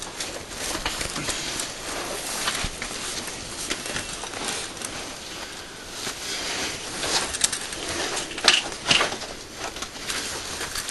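A caver climbing out of a narrow rock shaft: uneven scuffing, scraping and rustling of clothing, gloves and gear against rock, moss and dry leaves, with sharper knocks about seven to nine seconds in.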